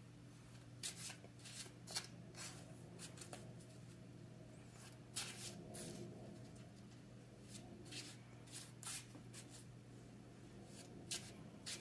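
A deck of Marvel Legendary game cards being shuffled by hand: a run of soft, irregular card snaps and slides, over a faint steady low hum.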